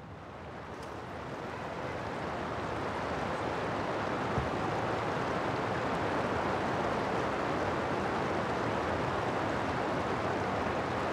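Steady rush of flowing river water, fading in over the first two seconds or so and then holding even.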